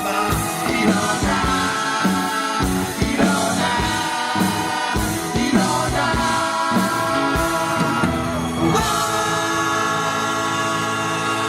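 Live rock band playing, with drum hits and singing over guitar. About nine seconds in, the drums stop and a full chord is held and rings on steadily.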